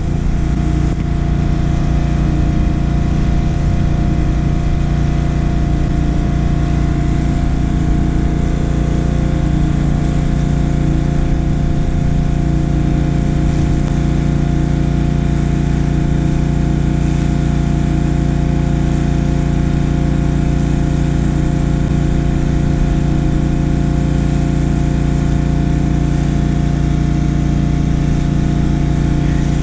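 Petrol pressure washer's engine running steadily at a constant speed while the driveway is being washed.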